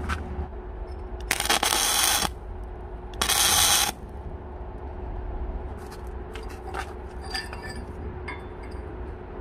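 Two tack welds fixing steel axe blades in place: two loud bursts of welding noise about a second each, the second shorter. A few light metal clinks follow, over a low steady hum.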